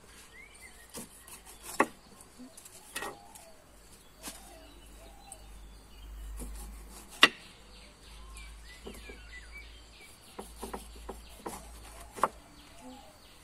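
A large kitchen knife slicing the skin off a pineapple, the blade knocking on a wooden board in irregular strokes, one much sharper knock a little past the middle. Birds and insects chirp faintly behind.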